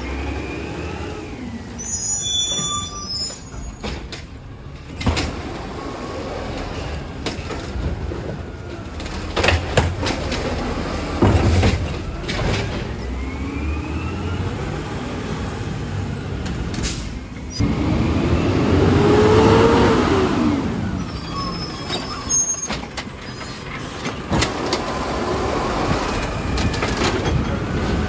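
Garbage truck on a recycling route, its diesel engine running with several loud knocks and bangs. A few seconds past the middle the engine revs up for about three seconds and then settles back.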